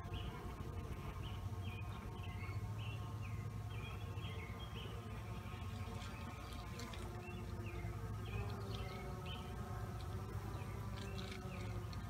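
Honey bees buzzing over the open top bars of a hive: a steady, low colony hum.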